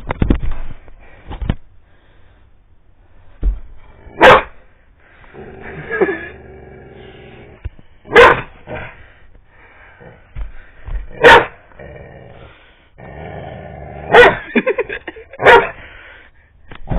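Yellow Labrador retriever barking in play, about five loud barks a few seconds apart, with growling between them.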